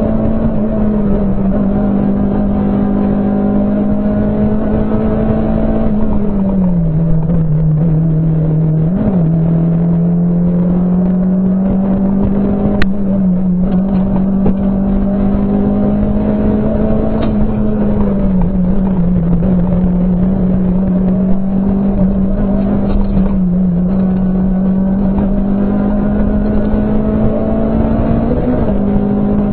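Rally car's engine heard from inside the cabin, running hard at a high, steady pitch that drops and climbs back a few times through the stretch, over road and tyre noise. A single sharp click is heard near the middle.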